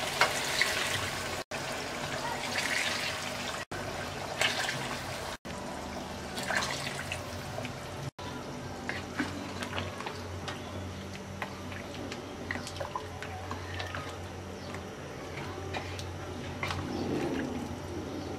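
Hot water being poured into a pot of braised chicken, splashing and filling; the sound drops out for an instant several times. Later it settles to a quieter hiss with small scattered ticks as the liquid heats.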